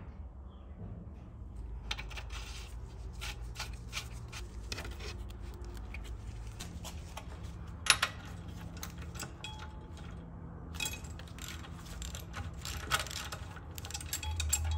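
Metal clicks and clinks of a socket wrench loosening and unscrewing the spark plug from a small Briggs & Stratton engine's cylinder head, with one louder clink about eight seconds in.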